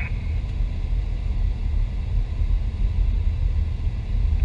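Boeing 727 at the start of its takeoff roll, heard from the cockpit: a deep rumble of engines and runway that grows steadily louder as thrust comes up.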